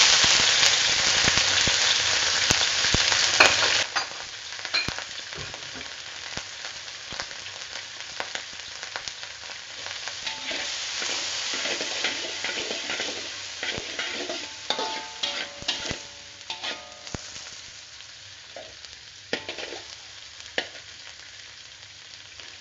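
Dried shrimp, garlic and shallots frying in hot oil in a wok. A loud sizzle drops sharply about four seconds in to a quieter crackle. Through it a metal spatula scrapes and knocks against the wok.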